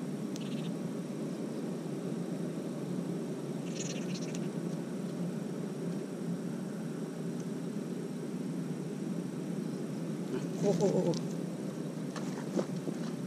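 Steady low outdoor background noise with a few faint clicks, and a short pitched call about eleven seconds in, the loudest sound, which rises and falls like an animal call.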